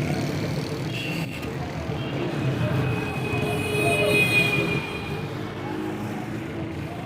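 Busy street ambience: road traffic running past, with voices of people in the background.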